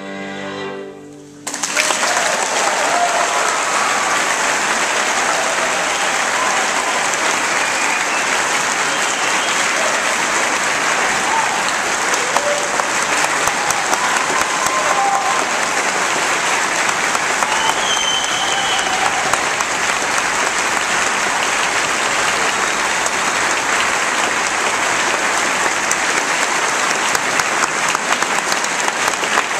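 The final held chord of a violin, cello and orchestra performance, ending about a second and a half in. Then an audience bursts into applause that keeps up steadily.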